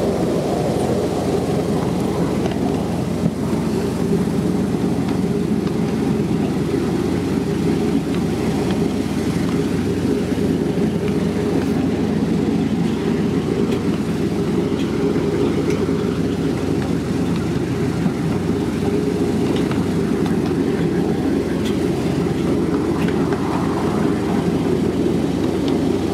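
Miniature railway train running steadily along the track behind its miniature Class 55 locomotive, heard from a riding car: a constant low running noise of wheels on rail and motor, with a few faint ticks.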